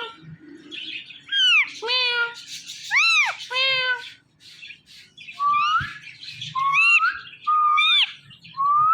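Indian ringneck parrots calling: a few arching, overtone-rich calls in the first four seconds, then a regular run of five rising calls, roughly one every 0.8 seconds, from about halfway through.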